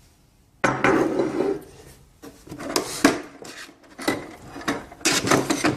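Metal mounting brackets clinking and rattling as they are handled and set down, starting about half a second in, with several sharp clicks.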